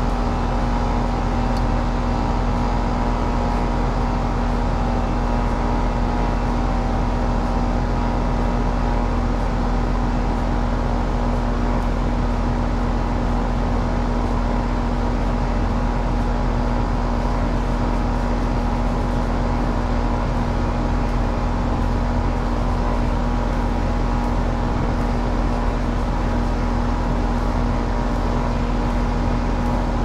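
Heat pump outdoor condensing unit running steadily in cool mode, compressor and condenser fan together making a constant hum with a steady low tone.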